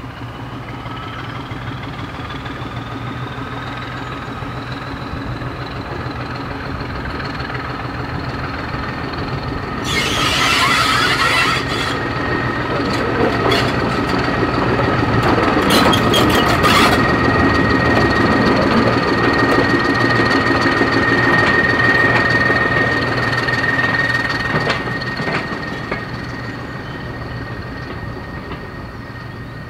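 Class 14 diesel-hydraulic shunter D9516's Paxman six-cylinder engine running as it hauls a coach past, with a steady high wheel squeal. A brief loud rush of noise comes about ten seconds in, then clicks of wheels over rail joints. The sound swells as the train passes and fades as it draws away near the end.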